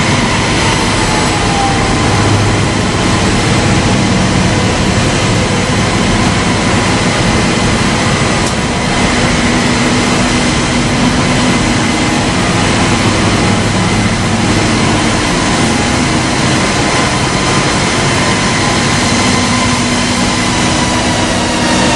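Weber KLE 2000 wide belt sander running: a loud, even machine noise with a steady whine over it.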